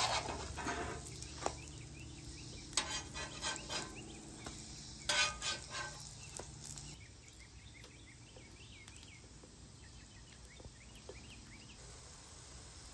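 Metal spatula scraping and tapping on a hot griddle top as corn-fritter batter is laid down, several times in the first six seconds. After that, only the faint sizzle of the fritters frying in oil.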